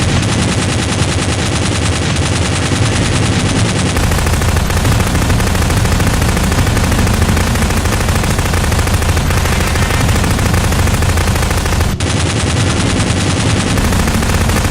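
Sustained rapid automatic gunfire: a dense, unbroken rattle of shots, with the mix changing abruptly about four seconds and twelve seconds in.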